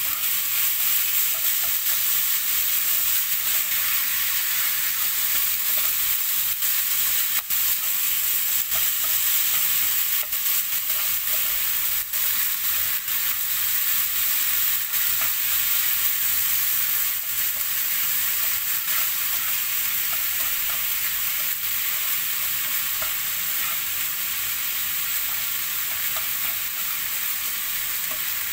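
Minced beef and onion frying with a steady sizzle while a utensil stirs and breaks up the mince so it isn't lumpy. Occasional sharp clicks come from the utensil against the pan.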